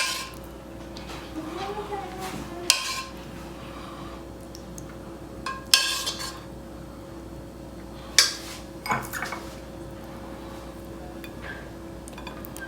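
Metal spoon clinking and scraping against a cooking pot and a serving plate as curry is dished up: about five sharp clinks spread out, with a faint steady hum underneath.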